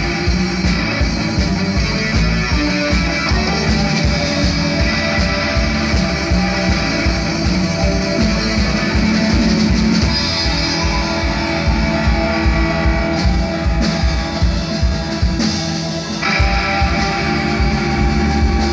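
Rock band playing live, amplified: distorted electric guitars, bass, drum kit and keyboard in a psychedelic indie-rock instrumental passage. The band thins out briefly near the end, then comes back in full.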